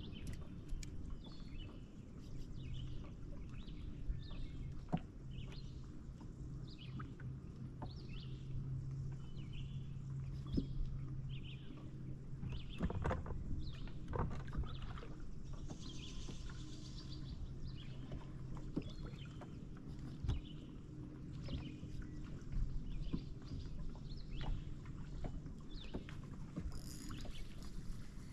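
Bass boat's electric trolling motor humming steadily through the middle stretch, with short bird chirps and a few light knocks of tackle on the boat.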